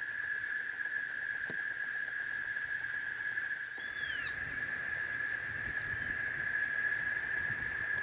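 Steady high-pitched drone of insects, held on one pitch. About four seconds in, a single short bird call sweeps downward in pitch.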